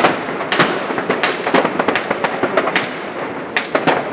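Fireworks and firecrackers going off all over a city: a constant background crackle with sharp separate bangs about two or three times a second.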